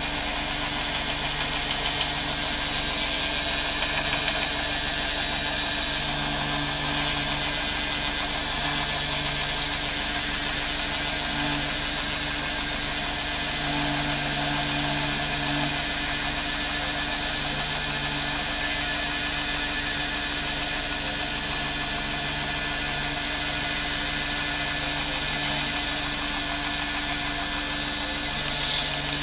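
Belt grinder running steadily as a knife handle is pressed against its sanding belt to face it flat: a constant motor hum whose low tone swells and eases at times, over an even grinding hiss.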